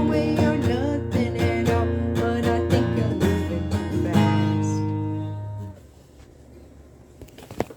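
Acoustic guitar strummed in rhythm, finishing on a final chord that rings out and stops a little under six seconds in. A faint room hush follows, with a single click near the end.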